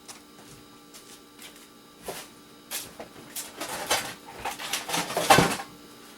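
Scrap electronic parts being handled and set down on a work surface: scattered light clicks and clatters, busier and louder about four to five seconds in.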